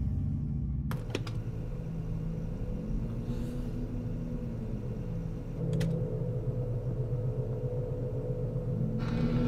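Low, steady rumbling drone with a faint hum, broken by sharp clicks about a second in and again near six seconds.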